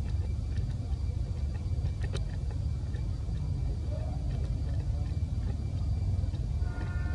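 Steady low rumble, with a single faint click about two seconds in.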